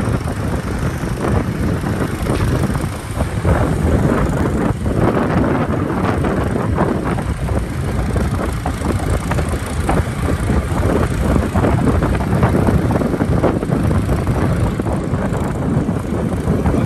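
Motorcycle running steadily along a road, its engine noise mixed with wind buffeting the microphone.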